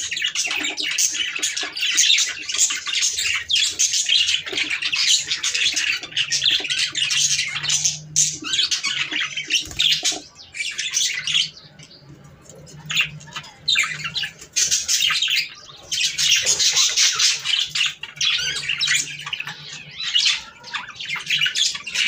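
Budgerigars chattering: dense, fast warbling and chirping, with a few short lulls about halfway through.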